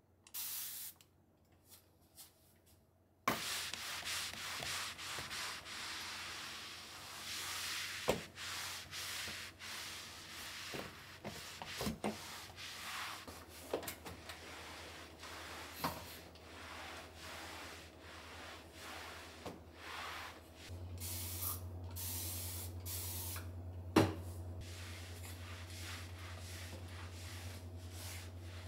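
A microfibre flat mop being pushed and rubbed across surfaces, a steady scraping swish with scattered light clicks from the mop head and pole, and one sharper knock near the end.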